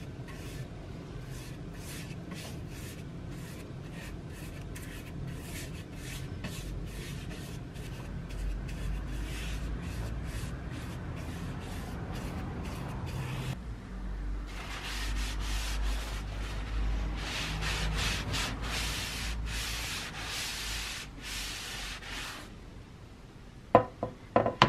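A brush rubbing teak oil into a wooden sledgehammer handle: a quick run of short, repeated brushing strokes that grow louder and denser past the middle. A few sharp knocks near the end.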